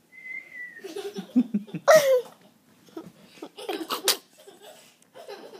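Girls laughing and giggling in several separate bursts, the loudest about two seconds in, with a brief high steady tone at the very start.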